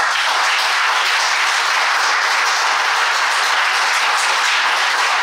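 Audience applauding: many people clapping together, loud and steady.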